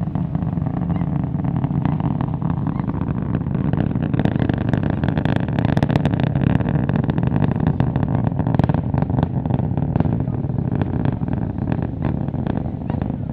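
Distant launch rumble of SpaceX Starship SN11's Raptor rocket engines: a steady deep roar, with a spell of sharp crackling in the middle.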